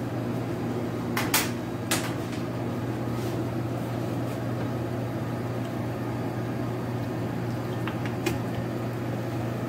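Steady low hum of kitchen machinery, a fan or refrigeration unit, with a couple of sharp knocks on the steel counter about a second and two seconds in. Water is poured from a plastic bottle over dried shrimp in a bowl.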